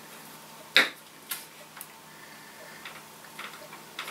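Light clicks and ticks of hand tools and wires working at the terminals of a light fitting's metal base: one sharper click about a second in, then fainter scattered ticks.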